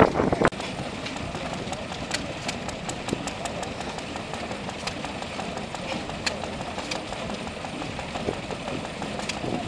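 Small vintage stationary engine running steadily, with a stream of water from the pump it drives splashing into a metal tank. A brief louder sound comes right at the start.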